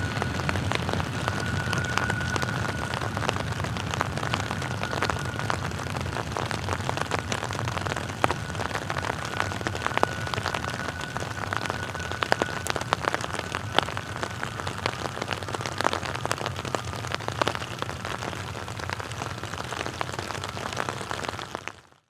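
Freight train cars rolling slowly past in rain, with a steady low rumble under rain pattering and many sharp ticks. A thin, steady high-pitched squeal runs above it. The sound fades out at the very end.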